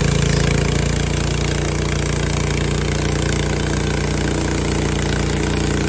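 Frontier OS23 portable bandsaw sawmill's gas engine running steadily at speed, dipping slightly in level about a second in.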